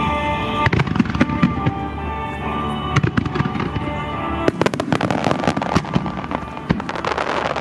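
Aerial fireworks going off in quick succession over music, the bangs turning into a dense run of crackling from about four and a half seconds in.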